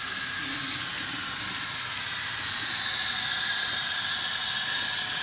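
Model train running along the layout track: a steady hiss of wheels and motor with a thin high whine.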